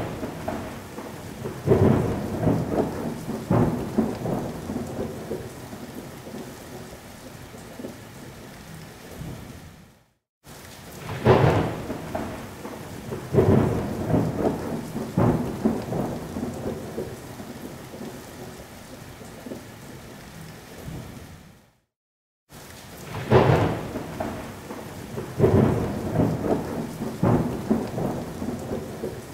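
Thunderstorm sound effect looped: a sharp thunderclap, then several rolling rumbles that fade into steady rain. It repeats about every eleven and a half seconds, with a brief dropout between repeats.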